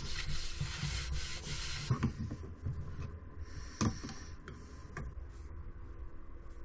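Tack cloth rubbing over a sanded wooden board, a brushing hiss for about two seconds, followed by a few light knocks.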